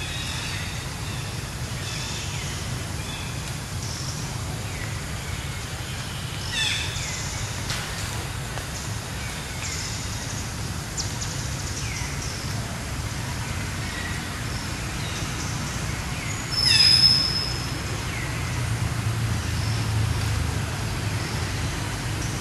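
Outdoor ambience: a steady low rumble with scattered short, high chirping calls. A louder, sharper call comes about two-thirds of the way through.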